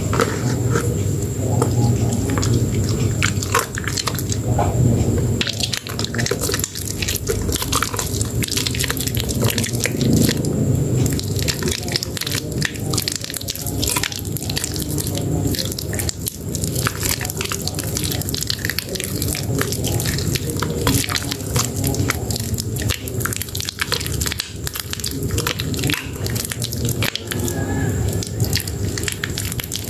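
A water-soaked bar of Dermythol Green soap being squeezed and kneaded by wet hands into soft mush and lather: dense, irregular wet crackling and squishing, over a low steady background hum.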